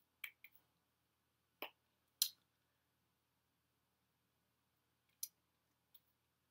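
Near silence broken by about six short, sharp clicks and taps, the loudest a little over two seconds in: the hand and mouth noises of someone signing.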